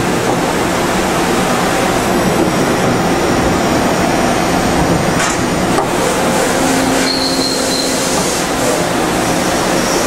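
Okuma MC-50H CNC horizontal machining center running a dry run: a steady, loud mechanical hum and hiss, with a brief higher whine about seven seconds in.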